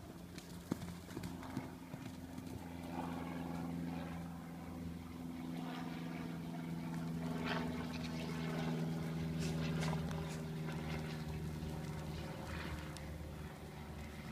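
Miniature horse's hooves on dirt and leaf litter as it gallops, over a steady low hum.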